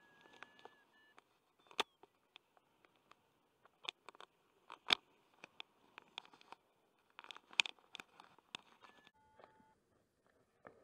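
Faint scattered clicks and crackles of the harness and camera being buffeted by the airflow in paraglider flight. A few short electronic beeps come from the flight instrument near the start and again about nine seconds in.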